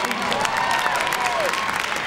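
Arena audience applauding, with cheers carrying over the clapping.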